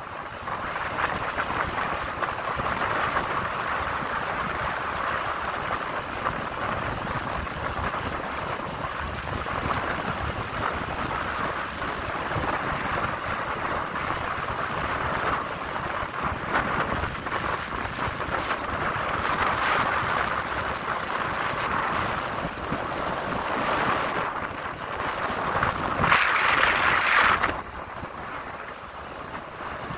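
Wind rushing over the microphone of a moving vehicle, with steady road and engine noise. Near the end the wind noise swells louder for a second or so, then drops off abruptly.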